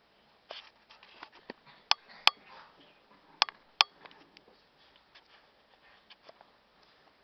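Labrador puppy moving about: scattered sharp clicks and taps, with two close pairs of louder knocks, one pair a little under 2 s in and another about a second and a half later.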